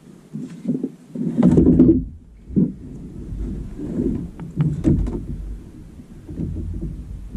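Irregular thumps and knocks inside a small fishing boat. The loudest come about a second and a half in.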